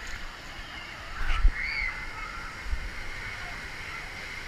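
Wave pool water sloshing around a camera held at the surface, with faint distant shouts of swimmers; a couple of low thumps, the loudest about a second and a half in.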